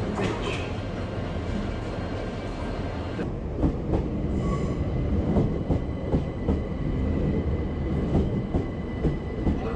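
Electric multiple-unit train moving through the station: a steady low rumble of wheels on track with scattered clicks over rail joints. About three seconds in the sound changes abruptly to a Southern Class 377 Electrostar pulling out close by, adding a thin steady high tone.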